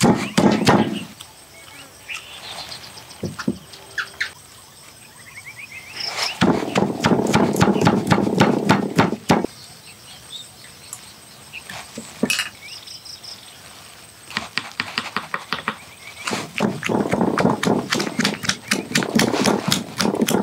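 Wooden pestle pounding rapidly in a stone mortar, crushing a chilli paste. It comes in three bouts: briefly at the start, from about six to nine seconds, and from about sixteen seconds to the end.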